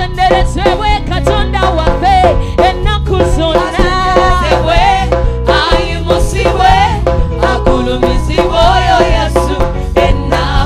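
Upbeat gospel praise music from a live band: drum kit and a repeating bass pattern under a sliding melody line.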